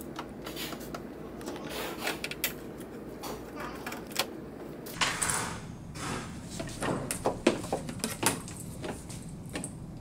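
Irregular clicks and knocks from working a T-handle Allen wrench on the screws of a printer's plastic side panel, with a rustling swish about halfway through and a quicker run of clicks later as the panel is handled and lifted free.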